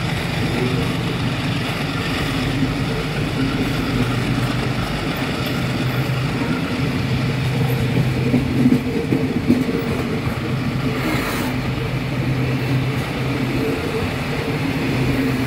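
Loaded ore wagons of a freight train rolling past, their wheels rumbling and clattering on the rails over a steady low drone. There are a few louder knocks about eight to ten seconds in and a short hiss just after.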